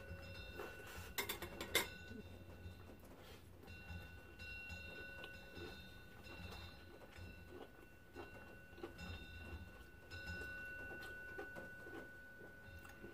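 Close-up eating sounds from a clip-on microphone: soft irregular chewing and mouth noises over a bite of fried herb pancake, with a few sharp clicks about a second in.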